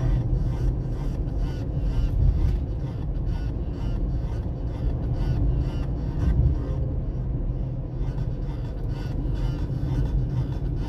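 Music playing over a Hyundai HB20's car stereo, heard inside the cabin over the steady low rumble of the car driving.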